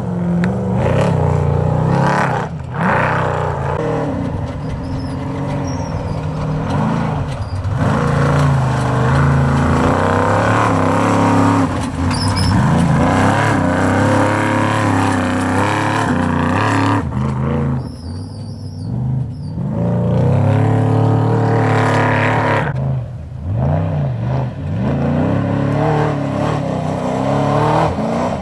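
Trophy-class desert race trucks passing on a dirt course, their engines revving hard, the pitch climbing and dropping as they accelerate and shift. The engine sound falls away briefly twice, then builds again as the next truck comes through.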